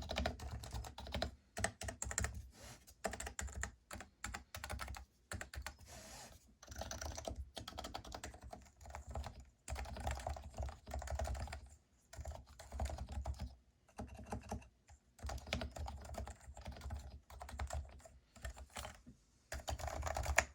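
Typing on a Leopold FC660c keyboard with silent Topre switches: quick runs of soft keystrokes in bursts, broken by short pauses.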